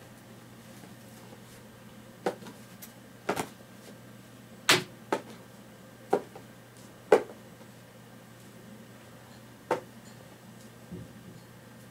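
A kitten playing with a feather wand toy: about eight short, sharp taps and swishes at irregular intervals, over a faint steady low hum.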